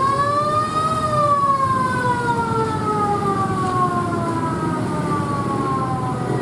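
Fire truck's wailing siren: the pitch rises over about the first second, then slides slowly down through the rest, over the steady hum of traffic engines.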